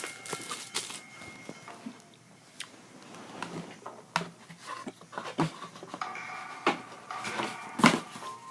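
Items and packaging being handled by hand: a run of irregular clicks, taps and rustles, with the loudest knock near the end. Faint background music notes are held at the start and again late on.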